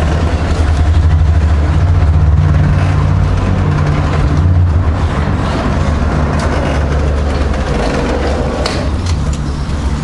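Motorised roller-shutter garage door rolling up, its motor giving a steady low hum that weakens toward the end as the shutter nears the top.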